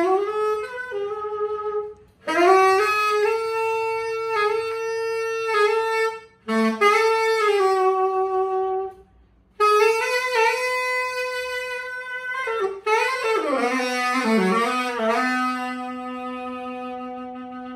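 Yamaha YTS-61 tenor saxophone played solo: melodic phrases with short breaths between them, ending in a falling run that settles into a long held low note.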